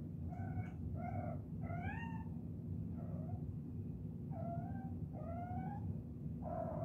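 Kittens chirping: about seven short, high mews, some rising in pitch, over a steady low background hum.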